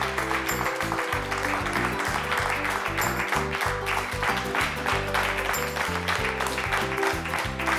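Background music with a changing bass line under steady applause from a group of people clapping their hands.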